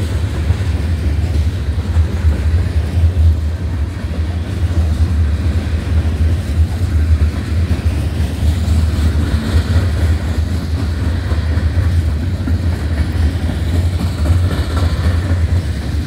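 Covered hopper cars of a freight train rolling past close by: a steady, loud low rumble of steel wheels on the rails.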